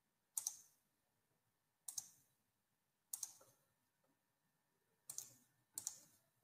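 Computer mouse clicking: five short, sharp clicks, most of them quick double-clicks, spaced one to two seconds apart.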